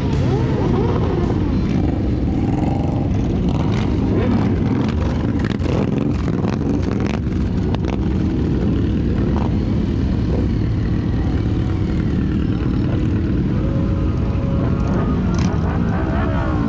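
Motorcycle engines running steadily in a large group ride, heard from a moving motorcycle: a dense, continuous low rumble mixed with wind noise.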